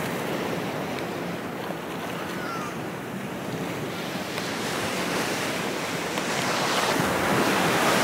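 Shallow sea surf washing and lapping around the camera, with some wind on the microphone, slowly growing louder near the end.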